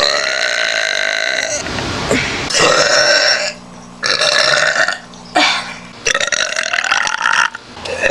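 A person burping loudly, four long, drawn-out burps one after another with short breaks between them.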